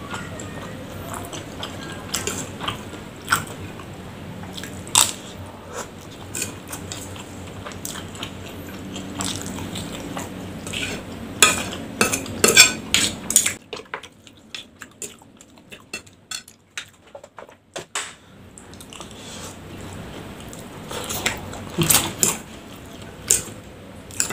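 Metal spoon and fork clinking and scraping against an amber glass plate in scattered sharp clicks, with a quieter stretch in the middle.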